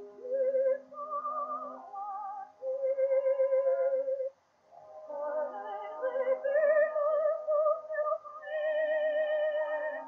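A 1908 acoustic 78 rpm Gramophone record of a romance for contralto with accompaniment playing: a melody of wavering notes with strong vibrato over sustained accompanying notes, broken by a short pause about four seconds in.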